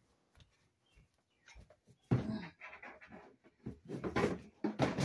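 A person breathing hard in short, irregular puffs from effort while forcing a plastic tube into a go-kart frame by hand. The puffs start about two seconds in.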